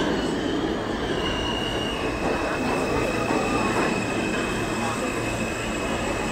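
A New York City subway train rolling past along an underground platform, its cars rumbling steadily over the rails. A steady high squeal comes in about a second in and holds, dipping slightly in pitch soon after.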